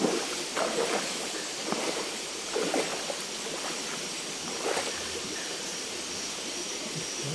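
Water sloshing and splashing in irregular strokes over a steady hiss of flowing stream water, the splashes thinning out after about five seconds.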